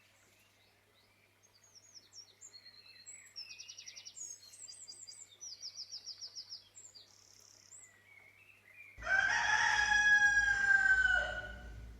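Small birds chirping and trilling, then a rooster crows once, loudly, for about two and a half seconds near the end.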